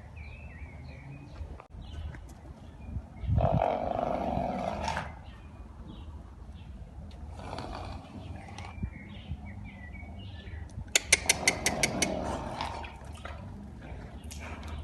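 Arabian horse snorting three times in loud, breathy blows through the nostrils. The last, about eleven seconds in, is a rapid fluttering snort. Faint bird chirps sound between the snorts.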